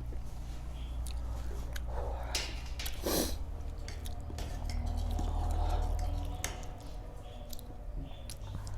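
Close-miked chewing of spicy noodles, with many small wet mouth clicks and a couple of louder bursts about two and a half and three seconds in, over a steady low hum.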